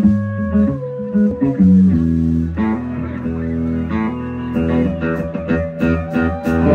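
Live country band playing an instrumental passage: electric guitars and bass with a pedal steel guitar, its held notes sliding down in pitch in the first couple of seconds, and drum hits coming in more sharply in the second half.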